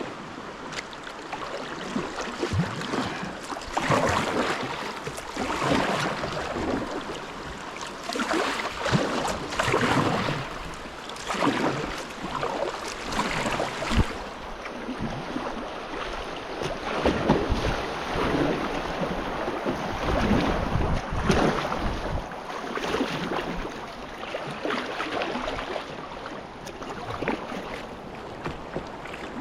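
Kayak paddling through whitewater: rushing river water with paddle strokes splashing every second or two.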